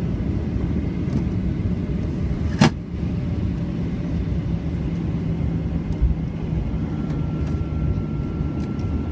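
Boeing 737-800 cabin noise while taxiing: the CFM56 engines and airframe give a steady low rumble. A sharp click comes a few seconds in, a low thump about six seconds in, and a faint steady high tone joins near the end.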